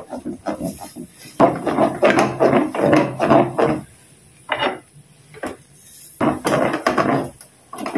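Wooden spatula scraping and stirring a thick, sticky paste around a non-stick wok in quick repeated strokes, with a pause of about two seconds past the middle before the stirring picks up again.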